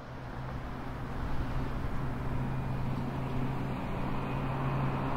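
Car engine running at a steady pitch, a constant low hum over a noisy rumble, swelling in over the first second.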